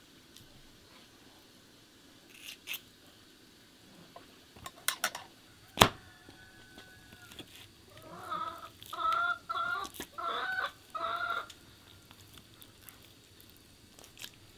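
A chicken clucking: a run of about five short calls in the second half. Earlier there are a few sharp clicks and knocks, the loudest about six seconds in.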